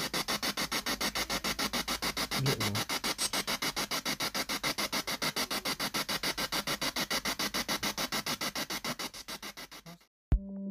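Spirit box sweeping through radio stations: choppy bursts of static, about eight a second, which the uploader hears as a child humming and saying "mummy". The static cuts off near the end and music starts.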